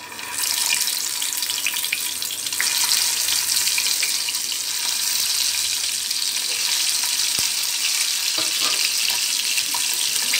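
Hot oil sizzling in a frying pan as masala-coated eggs are laid in one by one for shallow-frying. The sizzle starts abruptly as the first egg goes in, then carries on steadily with small scattered crackles.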